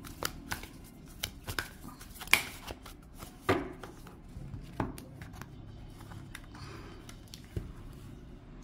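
A deck of oracle cards being hand-shuffled: a run of short, sharp card snaps and flicks, loudest about two and a half and three and a half seconds in. The snaps thin out after about five seconds as cards are dealt out onto a wooden table.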